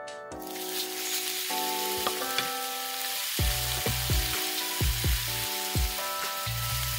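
Strips of raw beef sizzling as they hit hot oil in a frying pan; the sizzle starts just after the start and carries on steadily. Background music with a bass beat plays over it.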